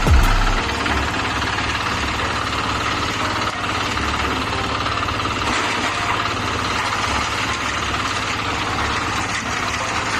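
An engine running steadily at an even speed, of the kind that drives machinery at a concrete pour.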